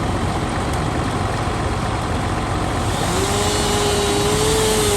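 Engine running steadily under load, with a steady whine coming in about three seconds in.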